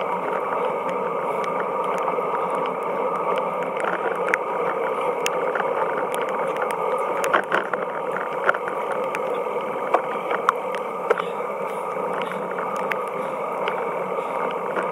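Muffled, steady rush of wind and wet-road tyre noise picked up by a camera on a bicycle riding in the rain, with scattered sharp ticks, most of them in the middle.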